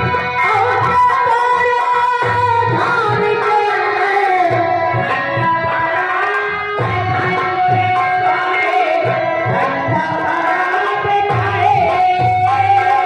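Live Bhojpuri folk-theatre music: a tabla-like hand drum beating a steady rhythm under sustained melodic accompaniment, with a wavering sung melody line over it.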